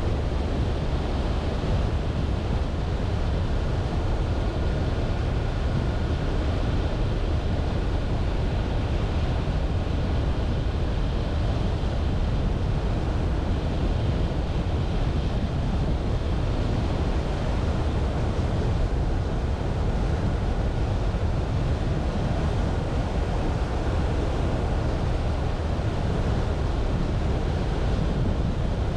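Steady road and wind noise of a car driving along a mountain road, a constant low rumble with a hiss over it.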